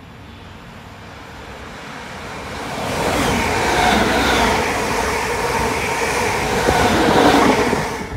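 Royal Mail Class 325 electric multiple unit passing along the platform. Its running noise is faint at first, swells from about three seconds in, and then stays loud.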